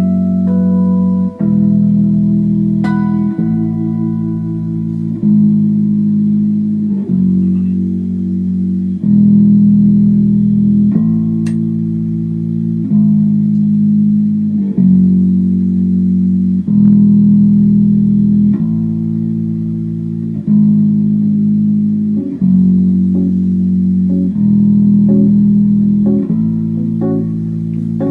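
Live band playing an instrumental passage: bass and guitar hold low chords that change about every two seconds, with higher plucked guitar notes ringing over them in the first few seconds.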